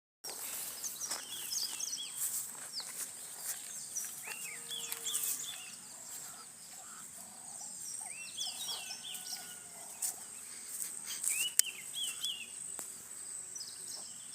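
Birds chirping and calling, many short quick chirps overlapping, over a steady high-pitched insect drone. A single sharp click about eleven seconds in.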